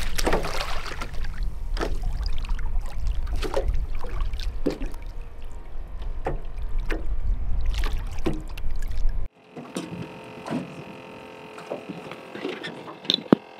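Wind buffeting the microphone as a steady low rumble, with small waves slapping irregularly against the side of a small boat. About nine seconds in the sound cuts off abruptly to a much quieter background.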